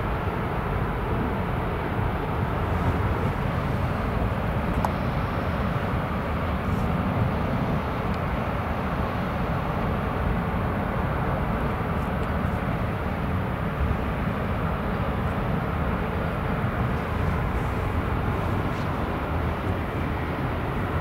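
Stena Line ferry Mecklenburg-Vorpommern manoeuvring into its berth: a steady low rumble of the ship's machinery with a noisy hiss over it and no distinct tones.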